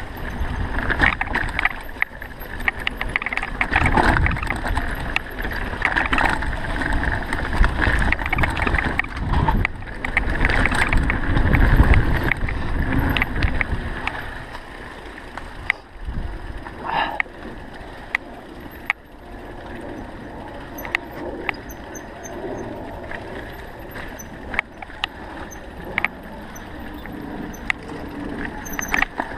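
Mountain bike riding a dirt trail: tyre noise and rattling, clicking parts of the bike over rough ground, with wind buffeting the microphone. It is louder and rougher in the first half, then calmer.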